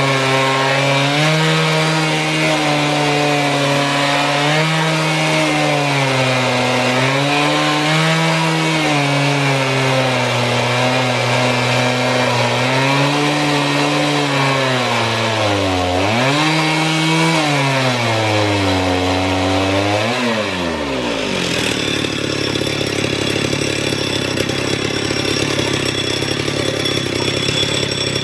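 Two-stroke chainsaw in a homemade portable chainsaw mill, ripping a log lengthwise at high revs, its pitch rising and falling as the load of the cut changes, with two deeper dips. About twenty seconds in the engine pitch drops sharply and the saw settles to a lower, steady idle as the cut comes out of the log.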